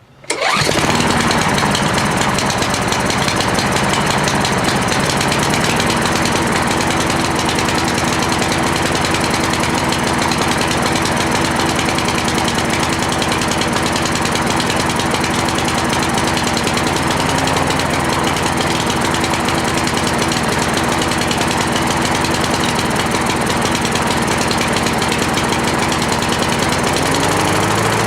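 Cub Cadet lawn mower's 173cc single-cylinder OHV engine, running on a new carburetor, starts up right at the outset and runs steadily; near the end its pitch rises as it speeds up.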